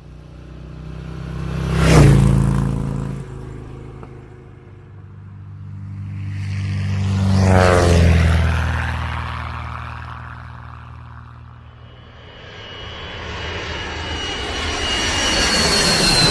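Aircraft engine sound with fly-bys: a quick pass peaking about two seconds in and a slower pass around eight seconds. A third approach builds steadily from about twelve seconds, with a high whine near the end.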